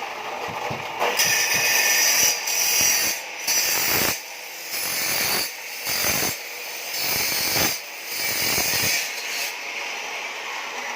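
A tool rasping against a hard material in a run of repeated strokes, each up to about a second long with short pauses between, like sawing or filing by hand.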